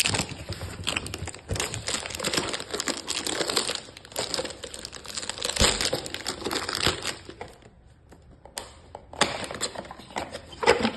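Packaging crinkling and rustling as it is handled and unwrapped. It goes quiet for about a second and a half, then rustles again near the end.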